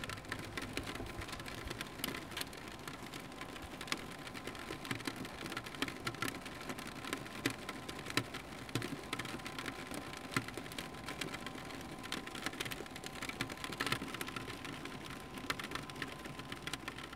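Rain falling, an even hiss with many irregular drop taps.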